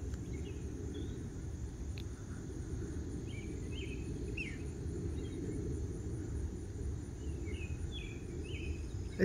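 Frogs calling in an evening chorus: short high chirps in small, irregular groups over a steady low rumble.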